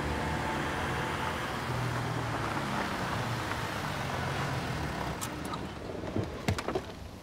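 A Mercedes-Benz sedan driving slowly on a wet street and pulling up: steady engine and tyre noise, with a few sharp clicks near the end.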